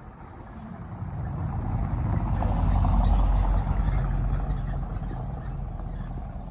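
A car passing close by and driving off along a stone-paved street: engine and tyre noise swelling to a peak about three seconds in, then fading.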